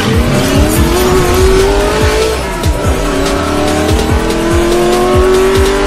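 Intro music with a steady drum beat, layered with a car engine revving sound effect: two long rising sweeps in pitch, the first climbing over about two seconds, the second over about three.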